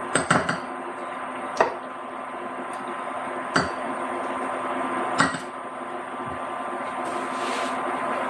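A metal spoon clinking sharply a handful of times against a small bowl and a nonstick frying pan as flour is spooned into bacon grease for a roux, over a steady background hum.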